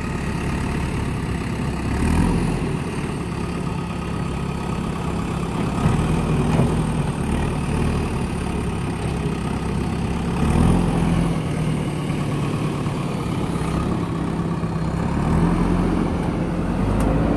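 JCB backhoe loader's diesel engine running, picking up revs briefly about four times as the front loader bucket works against a concrete culvert pipe.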